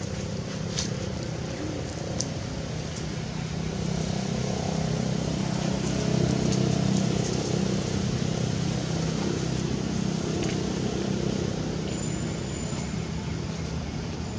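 Low, steady engine hum of a motor vehicle, swelling louder around the middle and easing off again, with a few faint ticks in the first couple of seconds.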